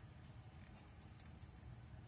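Near silence: room tone with a couple of faint, short clicks.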